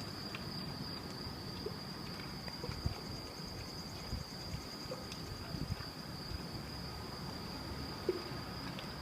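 A steady high-pitched insect trill that does not break, over a low rumble with a few faint knocks.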